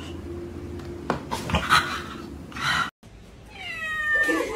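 A cat gives one long meow that falls in pitch, starting about three seconds in. A few short, indistinct noises come before it.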